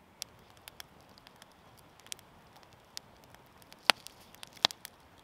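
Wood fire of split logs in a pop-up fire pit crackling, with scattered sharp pops at irregular intervals, the two loudest a little under a second apart about two-thirds of the way through.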